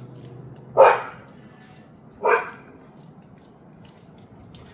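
A dog barks twice, about a second and a half apart.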